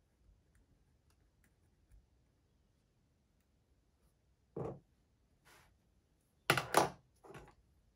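Handling noises at a desk as writing stops: faint pen ticks, then a soft knock about halfway through and a cluster of louder bumps and rustles a little later, the loudest two close together.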